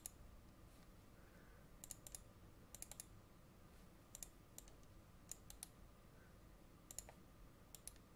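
Faint computer mouse clicks, single clicks and quick double-clicks at irregular intervals, over near-silent room tone.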